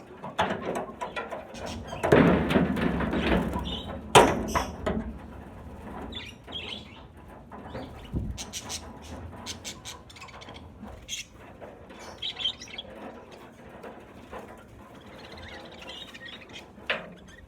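A flock of budgerigars chirping and chattering, with a loud rustling flurry about two seconds in and a sharp knock about four seconds in.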